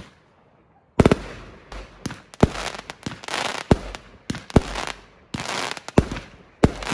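Aerial fireworks going off in quick succession. After a short lull, sharp bangs come about a second in and then every half second to a second, with stretches of crackling hiss from the bursting stars between them.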